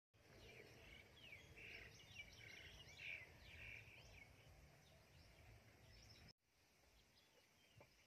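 Faint outdoor ambience with small birds chirping in a string of short, quick calls over a low background rumble. About six seconds in, the sound cuts out abruptly and returns quieter, with only a few faint chirps.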